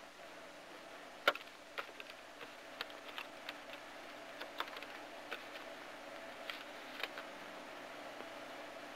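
Faint, irregularly spaced clicks and ticks, about a dozen of them, the sharpest about a second in, over a low steady hum.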